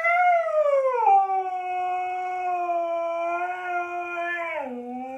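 Siberian husky howling: one long, unbroken howl that starts high and slides down over the first second, holds a steady pitch, then drops lower near the end.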